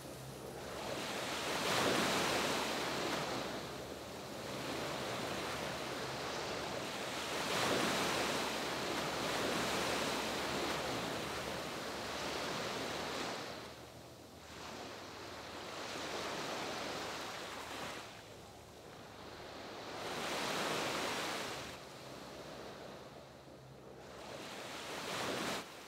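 Sea surf washing up a sandy beach, the hiss of the waves swelling and ebbing every few seconds.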